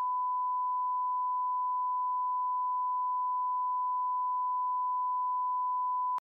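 Steady 1 kHz reference tone of a bars-and-tone test signal: one unwavering beep that cuts off abruptly with a click about six seconds in.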